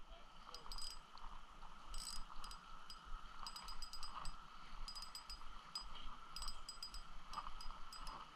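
Spinning reel being cranked to retrieve line, with light, irregular metallic clicks and ticks, some in quick clusters.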